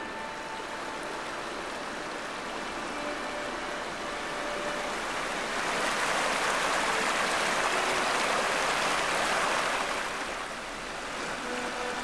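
River water rushing over rocks in a shallow, stony riffle: a steady rush of white noise that swells louder for a few seconds past the middle, then eases.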